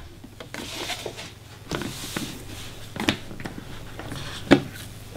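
Cardboard packaging being handled: soft rustling of the box's flaps and insert, with three or four light knocks and taps as they are moved, the loudest about four and a half seconds in.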